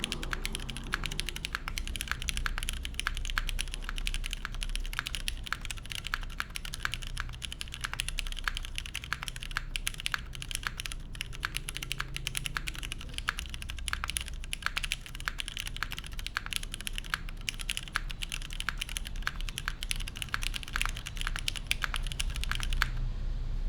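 Steady, fast typing on a custom top-mount TKL mechanical keyboard: lubed Cherry Hyperglide Black linear switches on an aluminium plate, with GMK keycaps, make a dense stream of key clacks. The typing stops shortly before the end.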